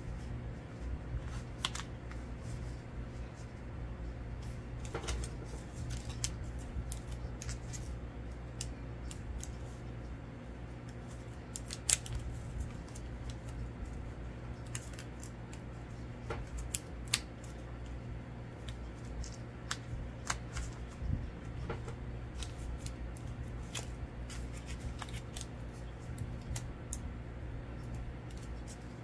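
Paper crafting handling sounds: scattered, irregular small clicks and taps as paper stickers and a card are picked up, moved and pressed down. A sharper click comes about 12 seconds in and another about 17 seconds in.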